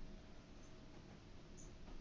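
Near silence: faint room tone with a couple of soft clicks.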